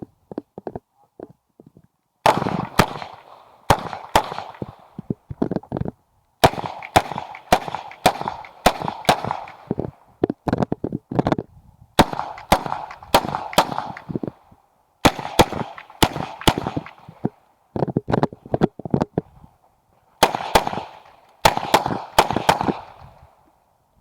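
Uzi Pro 9mm pistol fired in rapid semi-automatic strings during an IPSC course of fire: groups of two to five quick shots, each with a short echo, broken by pauses of about a second as the shooter moves between targets. A few fainter clicks and knocks come in the first two seconds before the firing starts.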